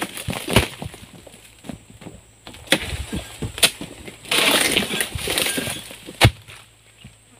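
Oil palm fronds being cut with a long-pole harvesting sickle: a run of sharp cracks and snaps as the blade works into the crown, a burst of rustling leaves about four seconds in, and one loud sharp thud a little after six seconds.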